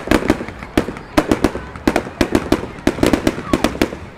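Fireworks going off in quick, irregular succession: a string of sharp bangs and crackles, several a second.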